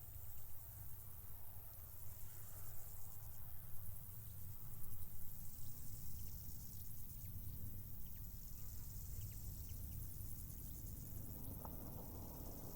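Crickets stridulating in a steady, high, fast-pulsing trill, over a low rumble of wind on the microphone.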